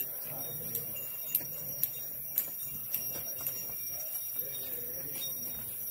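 A steady, high-pitched drone of forest insects, with irregular sharp clicks and a faint murmur of distant voices underneath.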